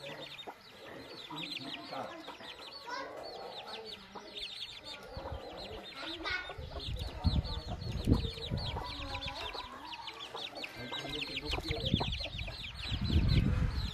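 A brood of chicks peeping without pause in quick, high, falling chirps, with a hen clucking lower beneath them. A few dull low thumps come around the middle and near the end.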